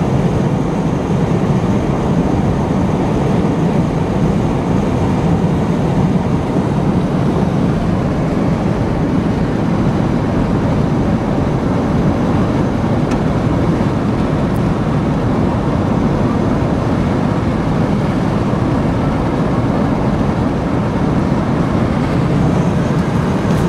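Steady road and engine noise inside a car cruising along a highway, an even low drone with no change in speed.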